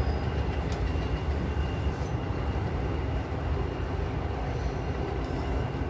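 Oreo-filled dough frying in oil on a gas stove with the flame turned low: a steady low rumble under a fainter sizzling hiss.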